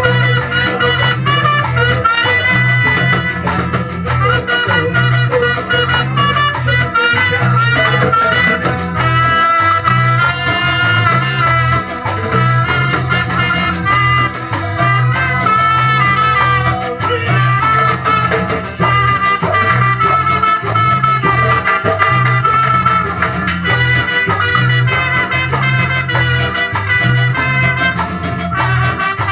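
Band playing a Latin, salsa-style instrumental passage with brass lines over a steady bass and percussion groove, live in a rehearsal room.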